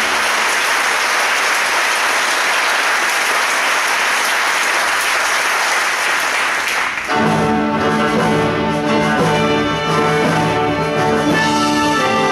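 Audience applause for about seven seconds, then band music with brass instruments starts.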